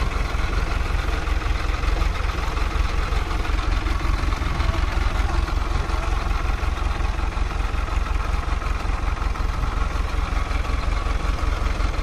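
Mahindra Arjun 555 tractor's diesel engine running steadily at low revs, an even, throbbing engine note.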